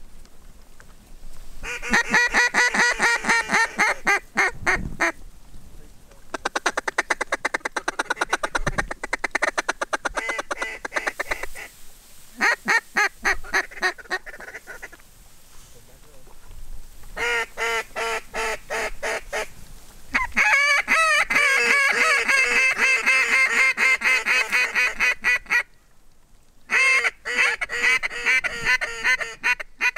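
A mallard-style duck call blown in long runs of rapid, loud quacks, about six sequences with short pauses between them. The calling is aimed at a flock of ducks passing overhead, to draw it in.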